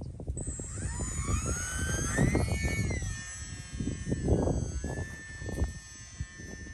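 E-Flite UMX Turbo Timber RC plane's electric motor and propeller whining, the pitch rising over the first couple of seconds and then holding steady, with wind buffeting the microphone in strong gusts.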